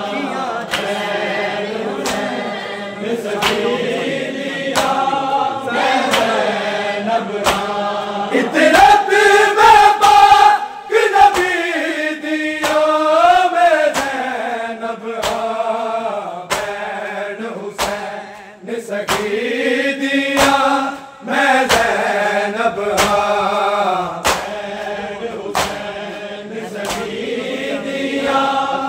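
A group of male reciters sings a Punjabi noha (mourning lament) in chant-like unison. Sharp slaps of hands striking bare chests in matam land roughly once a second in time with the lament.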